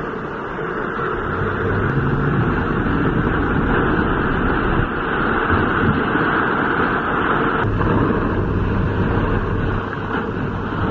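Heavy wind-driven rain and storm wind battering a moving car, heard from inside the cabin as a steady, dense rush with a low hum underneath.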